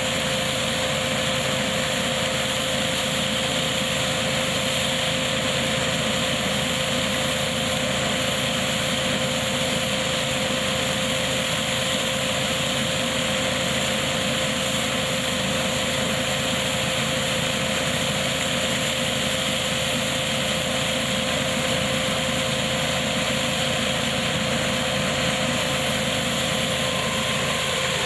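KF-501 hazelnut harvesting machine driven by its tractor, running steadily with a constant tone over the even engine noise.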